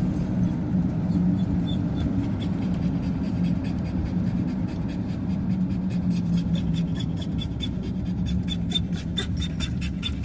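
Car driving, heard from inside the cabin: a steady low engine and road hum, with a rapid run of faint ticks that comes thicker over the last few seconds.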